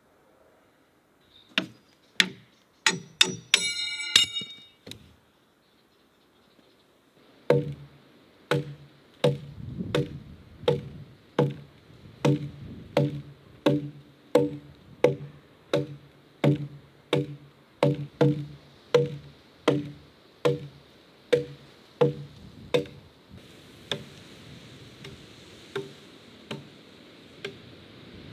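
Axe chopping into a log: a steady run of strikes, about one and a half a second, each a knock with a low ringing note, becoming fainter and sparser near the end. Before the run, a few sharp knocks with a bright ringing tone.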